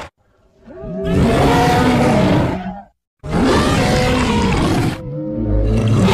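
Made-up dinosaur roars for Sauroniops pachytholus: three long, loud roars in a row, each about two seconds with short gaps between, the last still going at the end.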